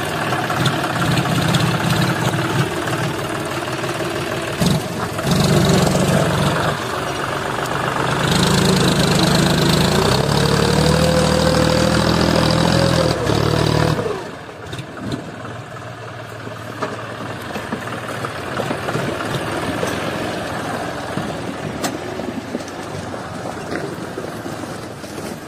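John Deere 5050D tractor's three-cylinder diesel engine running as it tows a trailer over a rough gravel road. The engine note climbs with a rising whine and is loudest between about 8 and 14 seconds in, then drops off suddenly to a quieter run.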